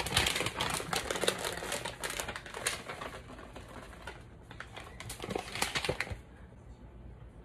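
Plastic bag of shredded cheese crinkling and rustling as handfuls are pulled out, a dense run of crackles and small clicks that stops about six seconds in.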